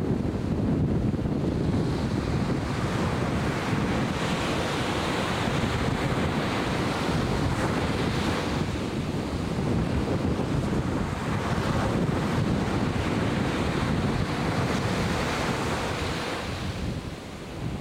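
Atlantic Ocean surf washing in steadily, with wind buffeting the microphone.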